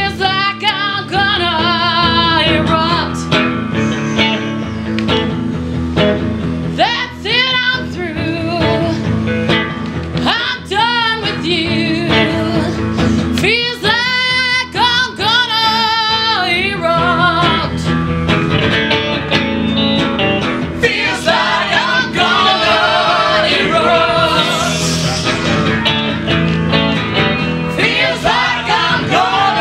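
Live improvised song: voices singing with wavering, held notes over steady instrumental accompaniment.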